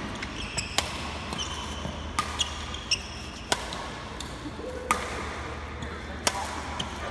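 Badminton rackets striking a shuttlecock in sharp pops about every second and a half, with short squeaks of shoes on the court floor, over a steady low hum in a large hall.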